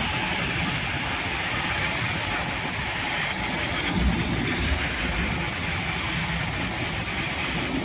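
Suburban EMU train running alongside a station platform, heard from its open doorway: a steady rumble of wheels on the rails with an even hiss over it.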